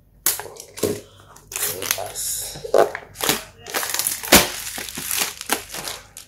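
A small cardboard earphone box being handled and opened by hand: a dense run of loud scraping, rustling and crinkling of the packaging, with one sharp knock about four seconds in.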